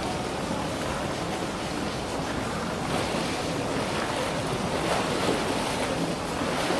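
Steady rushing and splashing of water in a polar bear pool, a little louder near the middle and end.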